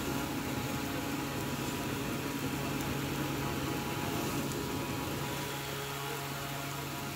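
Steady machine hum and whir, one low tone with many overtones, over a constant hiss.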